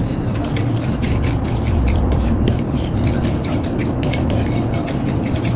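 Metal spoon stirring thick instant whipped cream by hand in a ceramic bowl, scraping and clicking against the bowl in a quick, uneven rhythm over a steady low rumble.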